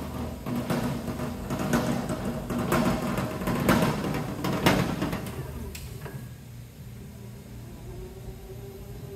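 Electric pallet jack driving across a concrete floor, its frame and empty forks rattling and clunking over a low motor hum, loudest in the first five seconds. After about six seconds it goes quieter, leaving a steady motor whine.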